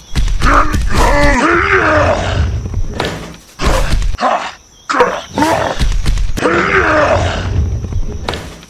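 A gruff voice groaning and grunting with strain, as if heaving something heavy: two long drawn-out groans with falling pitch, and a few short knocks between them.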